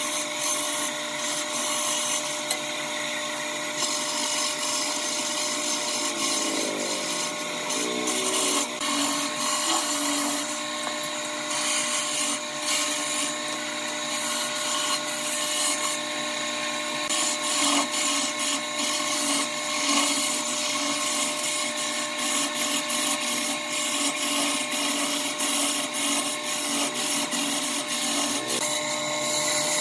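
Wood lathe turning a long wooden spindle while a hand-held turning chisel cuts it: a steady motor tone under a continuous high scraping hiss of the tool on the wood.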